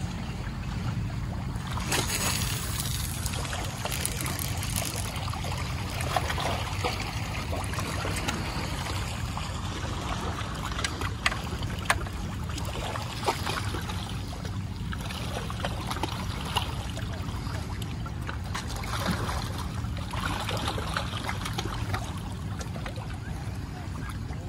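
Wind rumbling steadily on the microphone over water lapping at the shore, with two brief sharp clicks about halfway through.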